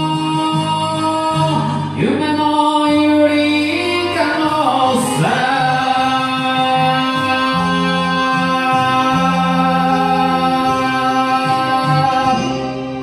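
A man sings an enka cover over a backing track, holding long drawn-out notes. The last note is held from about five seconds in until near the end.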